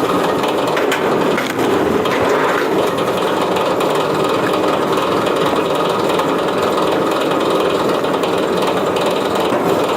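Wood-processing machine working firewood: wood cracking and splintering a few times in the first seconds, then steady machine noise.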